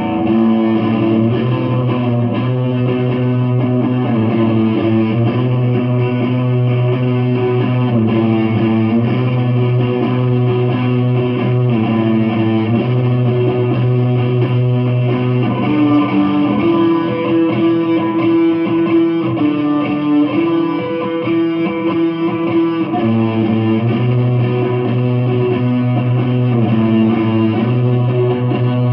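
Electric guitar played through an amplifier: a continuous passage of held chords and notes over a strong low register, the chords changing every second or two.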